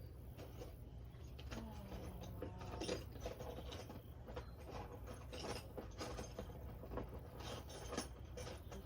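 Irregular metallic clicks, clinks and scrapes of hand tools working on a car's intake manifold, over a steady low hum.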